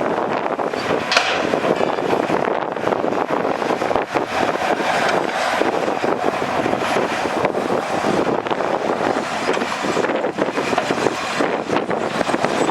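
Heavy diesel earthmoving machinery, a bulldozer working dirt, running steadily and loudly with a continuous rattling clatter.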